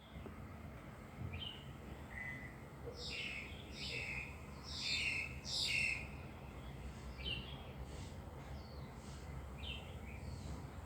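Songbirds chirping outdoors: a run of four loud, downward-sweeping calls about a second apart midway, with softer scattered calls before and after, over a steady low background rumble.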